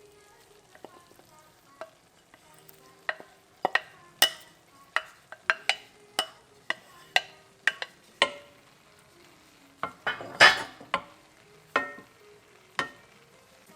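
Metal cooking utensils clinking and knocking against a pot in an irregular run of sharp, ringing strikes, with a louder clatter about ten seconds in.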